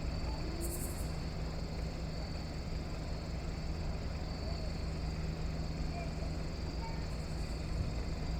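Floodwater rushing steadily, with a constant low hum underneath.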